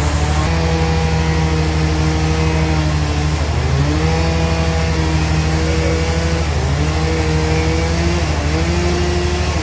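Band sawmill running, with a steady low hum and a machine tone that sags in pitch and recovers about three times, as if the saw were being loaded in the cut.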